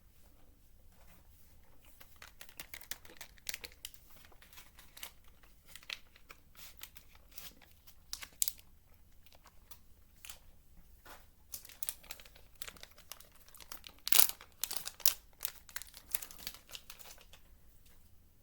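Gummy candy packaging crinkling and tearing as it is handled and opened, in irregular crackles, loudest about 14 seconds in.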